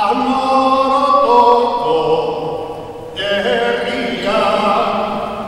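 Slow singing with long held notes in two sustained phrases, the second starting after a short break about three seconds in.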